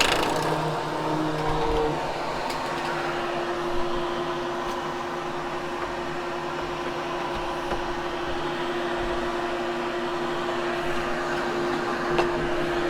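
Hoover Hushtone vacuum cleaner running steadily as it grooms carpet, a constant motor hum with a held tone and airy rush, with a couple of faint knocks.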